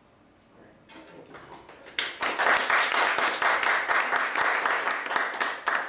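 Small audience clapping: a few scattered claps about a second in, then steady applause from about two seconds in that stops just before the end.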